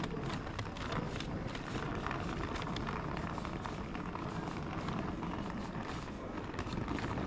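Steady rumble of a moving train, with many light clicks and knocks over it.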